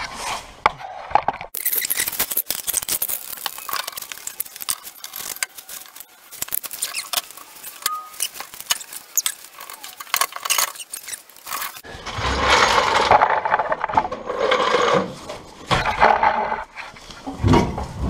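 Mounting bolts of a Rover SD1's fuel tank being undone with a socket wrench: a long run of rapid metallic clicks. About two thirds of the way in this gives way to louder scraping and knocking of metal as the freed tank comes down.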